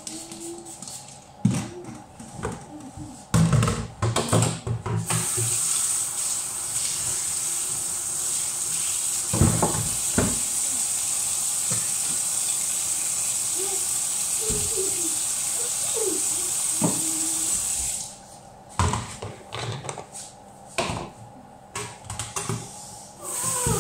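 Kitchen tap running steadily into a stainless-steel sink for about thirteen seconds, then shut off abruptly. Before and after it, plastic basins and dishes knock and clatter as they are handled.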